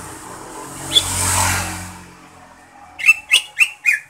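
A vehicle passes, its noise swelling and fading over the first two seconds. About three seconds in, a cucak ijo (green leafbird) gives a quick run of four sharp calls, about four a second.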